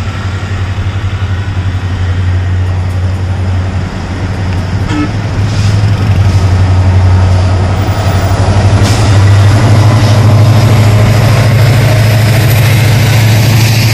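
WDP4D diesel-electric locomotive's EMD two-stroke diesel engine working under power with a steady low drone, growing louder over the first half as it approaches and passes. Near the end the rumble of passenger coaches rolling over the rails follows.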